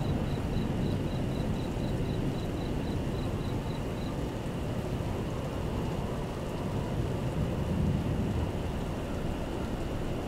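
Thunderstorm sound effects: steady rain with low rumbling thunder and a swell of rumble near eight seconds in. A faint high ticking, about four a second, runs under it and stops about four seconds in.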